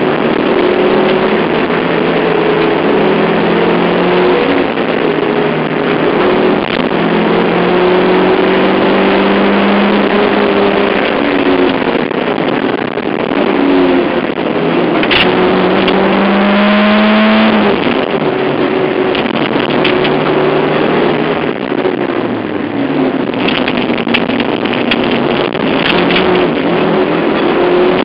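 Rally car's engine heard from inside the cabin at full stage speed, its note climbing with the revs and dropping sharply at gear changes, over loud road and tyre noise.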